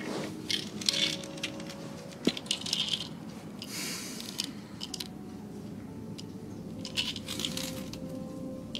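A plastic pill bottle being handled: scattered small clicks and rattles of pills inside it, over soft background music.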